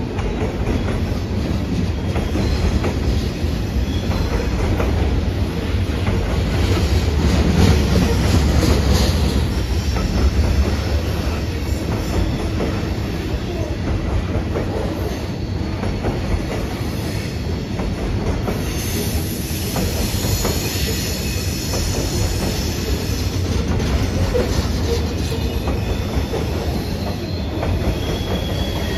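Loaded coal hopper cars rolling past: a steady low rumble of steel wheels on rail that swells for a few seconds about a quarter of the way through. Thin, high wheel squeal comes in from about two-thirds of the way through.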